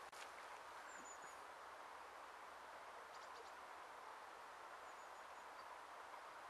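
Near silence: a faint, steady outdoor hiss with a few short, high bird chirps, about a second in and again later on.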